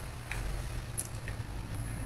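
Quiet room tone: a steady low hum with a couple of faint clicks.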